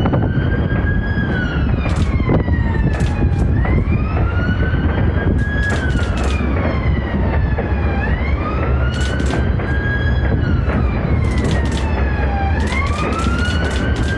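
An emergency vehicle's siren wails, rising and falling slowly about once every four seconds, over a steady low rumble. Fireworks crack and bang in quick clusters throughout.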